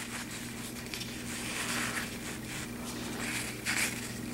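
PUL (polyurethane-laminated) fabric rustling as it is folded and handled, in a few soft swishes, over a low steady hum.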